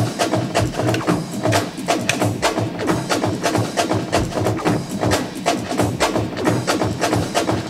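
Sampled breakbeat drum loop playing from a Make Noise Morphogene, shaped by the QPAS filter and Mimeophone delay as new variations of the break are recorded: a busy, steady pattern of drum hits.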